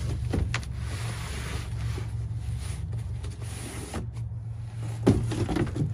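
Cardboard boxes being shifted and set down in a pickup truck bed, with a few soft knocks near the start and a sharper thump about five seconds in as a box lands, over a steady low hum.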